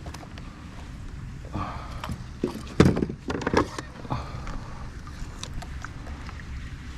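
Several knocks and clatters of gear being handled on a fishing kayak, loudest in a burst about three seconds in, over a steady low rumble.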